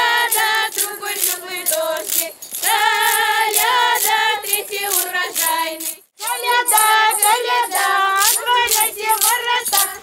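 Group of women and children singing a Russian koliadka (Christmas carol) together in high voices, with a rhythmic jingling in time with the song. The singing breaks off briefly about six seconds in, then picks up again.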